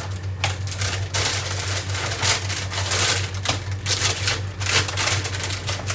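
Irregular clatter of small clicks, taps and rustles as kitchen containers and packets are handled and moved about, over a steady low hum.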